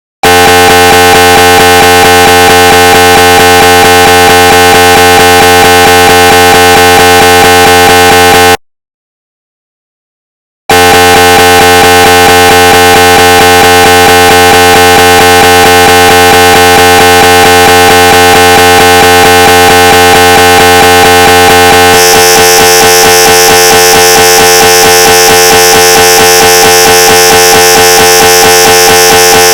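Recreated GE 750w 3T MRI scanner sounds: a loud, rapidly pulsing, buzzing drone of imaging-sequence noise. It cuts off about eight seconds in, returns after a two-second pause, and switches to a different, brighter pulse pattern about 22 seconds in, like a new scan sequence starting.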